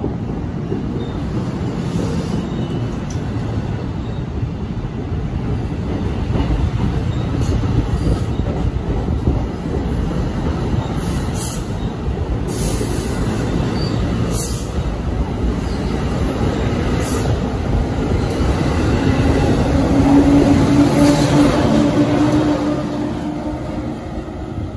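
NJ Transit multilevel coaches rolling past close by: a steady rumble of wheels on rail with a few sharp clicks over rail joints midway. About twenty seconds in, it swells with a louder hum as the ALP-46 electric locomotive goes by, then fades.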